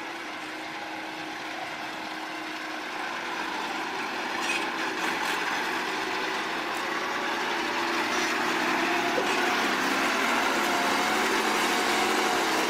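A vehicle engine running steadily, growing gradually louder.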